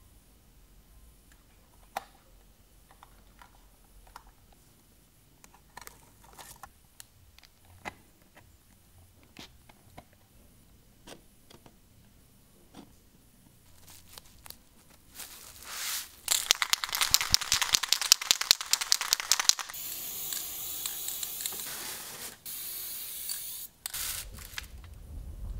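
Sparse small clicks and taps of a tin toy boat's pressed-metal parts being fitted and crimped with pliers. About fifteen seconds in comes a loud tearing crackle of masking tape being pulled off, then a steadier hiss for a few seconds.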